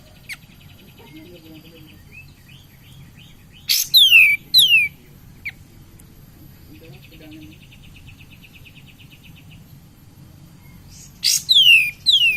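Kapas tembak songbird singing: two loud bursts of sharp, falling whistled notes, about four seconds in and again near the end, with faint rapid trilling between them.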